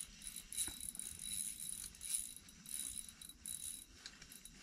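Small ice-fishing reel being cranked to bring up a hooked fish: a faint, uneven clicking and rattling whir.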